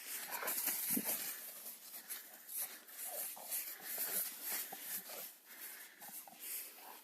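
Staffordshire terrier at play, giving irregular breathy huffs and short grunts, with rustling.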